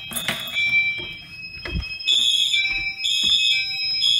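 Fire alarm notification appliances still sounding: steady high alarm tones, joined about two seconds in by a pulsing high beep about once a second. Just before that comes a single sharp clunk.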